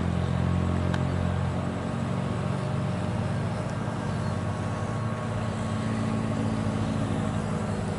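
A steady low engine drone that holds one pitch, over a haze of outdoor noise.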